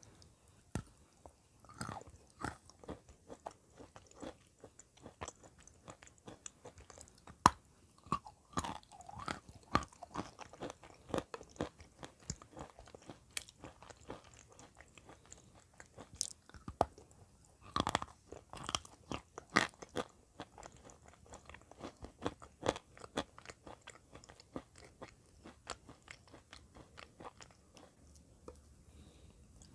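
A person biting into and chewing pieces of eating clay, with irregular sharp crunches.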